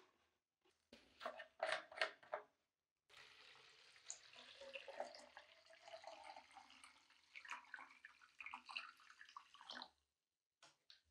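Green nickel plating solution poured from a plastic jug into a cut-down plastic bottle, a steady pour lasting about seven seconds and stopping shortly before the end. Before it, a few sharp knocks of the plastic containers being handled.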